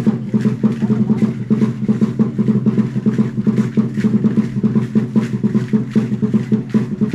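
Prehispanic-style dance music: a quick, steady drumbeat with rattling clicks over it.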